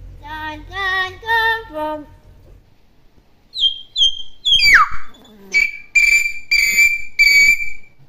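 Hill myna calling: a short run of four or five sung, wavering notes, then after a pause a few high short whistles, one whistle sliding steeply down, and a string of repeated clear whistled notes.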